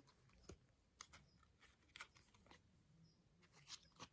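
Near silence broken by several faint, short clicks and light rustles of photocards being handled and sorted.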